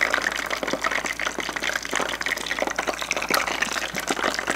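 Hot oil sizzling in a small tabletop deep fryer with pieces of fugu (pufferfish) karaage frying in it: a steady, dense crackle of fine pops.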